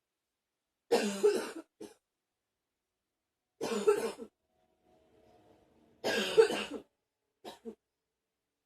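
A person coughing in three short, harsh bouts about two and a half seconds apart, each bout a couple of coughs run together and followed by a brief smaller catch, with a faint sound in the pause before the third bout.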